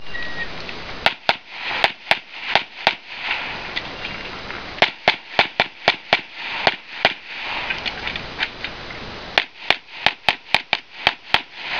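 Gunshots fired in three quick strings with short pauses between them: about six shots, then about eight, then about nine, each string fast, with a shot every third of a second or so.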